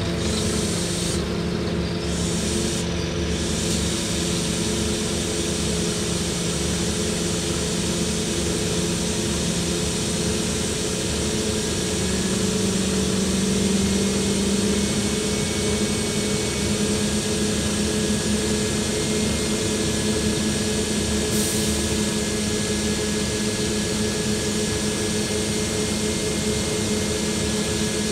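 A Scania N230UD double-decker bus's diesel engine and drivetrain running steadily, heard from the upper deck. The engine note rises a little about eleven seconds in.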